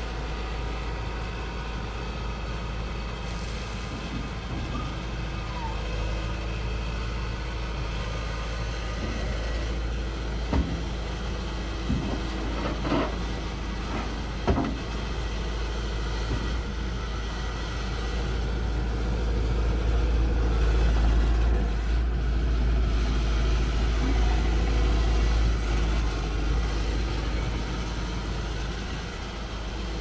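Kubota SVL90-2 tracked loader's 92 hp diesel engine running steadily while the loader arms are worked, with a few sharp clanks partway through. The engine grows louder for a stretch in the second half.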